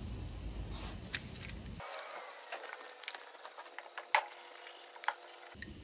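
Metal tools and parts being handled while a piston goes into the block: a few sharp metallic clicks and clinks from the ratcheting piston ring compressor and the connecting-rod cap and bolts, over soft handling noise.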